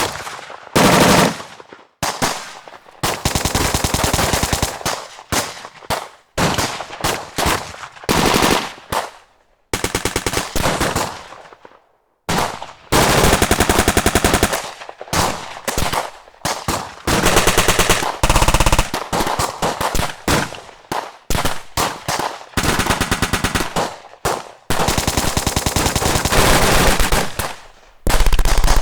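Automatic gunfire in repeated bursts of rapid shots, some short and some running several seconds, with brief pauses and echoing decays between them. Recorded battle sound effects, heavy and continuous like a firefight.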